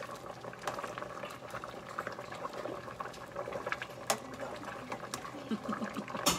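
A pot of ginataang labong (bamboo shoots in coconut milk) bubbling on the stove, stirred with a spoon, with a few sharp clicks of the spoon against the stainless-steel pot, the loudest near the end.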